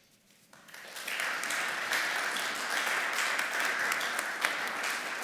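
Audience applauding, building up about half a second in and then clapping steadily.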